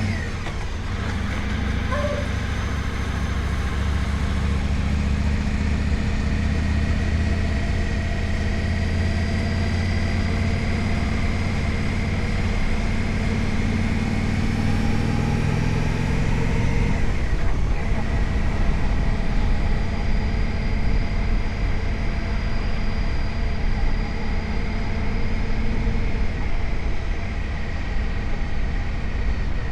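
Indian Scout Sixty's liquid-cooled V-twin engine running, with a steady sharp high-pitched whine over the engine note: an abnormal noise that has grown worse over the bike's first year and has not been fixed. The low engine sound shifts about halfway through while the whine carries on.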